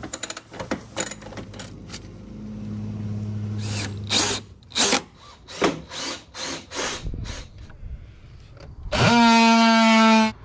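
Cordless drill run for about a second and a half near the end, a loud steady whine that spins up quickly, driving a screw into the camper shell's wood frame. Before it, scattered clicks and knocks of hand work on the shell's metal fittings and a brief low hum.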